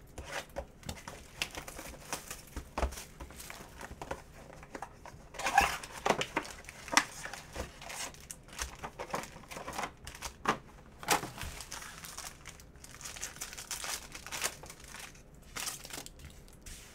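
Crinkling, rustling and tearing of packaging as a Panini Mosaic basketball hobby box is opened and a foil card pack is pulled out and ripped open, with many scattered sharp clicks and crackles; the busiest crinkling comes about five to seven seconds in.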